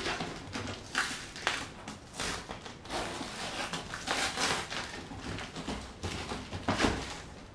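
A cardboard shipping box being torn open by hand: cardboard and packing tape ripping and the packing rustling, coming and going irregularly with a few sharper rips.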